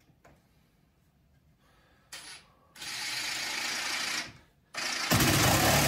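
Ridgid cordless driver driving a screw into a wooden jig fence, running in bursts: a short one about two seconds in, a longer one about a second later, and a louder one near the end.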